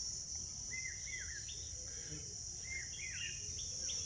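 Outdoor ambience: a steady high drone of insects such as crickets, with a bird repeating short chirping notes several times.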